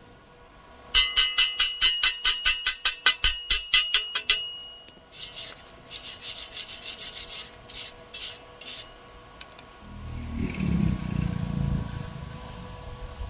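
A hand tool scraping metal: a quick run of even strokes, about five a second, each with a metallic ring. These are followed by a stretch of hissier scraping and, near the end, a deeper rumbling noise.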